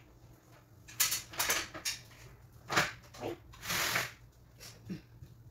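Knocks and clatters of objects being handled on a kitchen worktop, with a brief hiss about three and a half seconds in.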